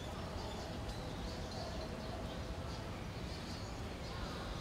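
Faint, short high chirps of small birds repeating every half second or so, over a steady low background rumble.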